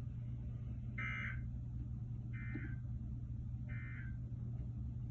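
Three short warbling data bursts of the Emergency Alert System's SAME end-of-message code, about a second and a quarter apart, marking the end of a weather alert broadcast. A steady low hum runs underneath.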